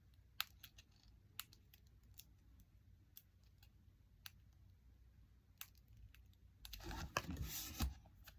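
Light scattered clicks and taps of hands working with card and vinyl lettering on a tabletop, with a short stretch of rustling and handling near the end.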